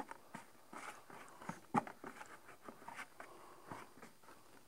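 Faint, irregular rustling and scratching of a hand bouncing and rolling a polyfiber tree ball around in a bucket of powdery ground foam, coating it to make a model tree.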